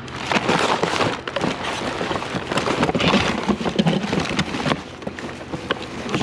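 Dense crackling and rustling of discarded items being handled and shifted in a curbside junk pile, easing off near the end, over a steady low hum.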